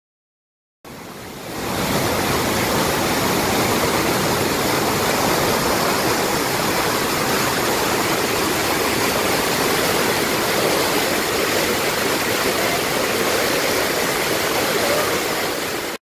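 Waterfall: a loud, steady rush of falling water that starts suddenly about a second in, swells over the next second, then holds even and cuts off abruptly.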